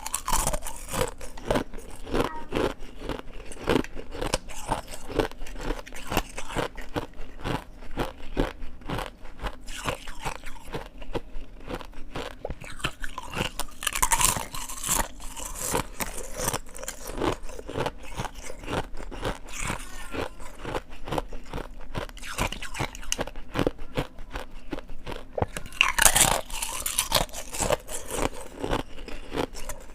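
Ice being crunched and chewed close to the microphone: a continuous dense crackle of breaking ice, with two louder bites, one midway and one near the end.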